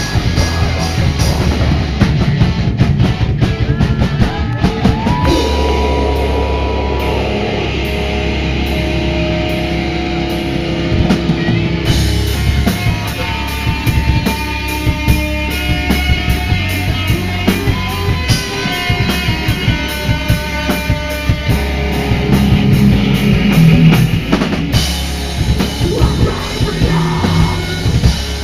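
Metal/hardcore band playing live at full volume: drum kit and electric guitars, with vocals over them.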